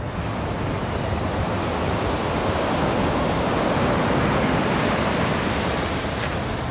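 Ocean surf washing onto the shore: a steady rushing hiss that swells to a peak about four seconds in and then eases.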